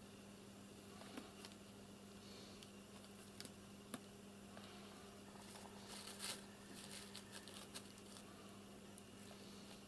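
Near silence: a steady low hum with faint scattered clicks and short rustles, busiest around six seconds in, as a kitten paws at a pigeon on a ledge lined with newspaper and cardboard.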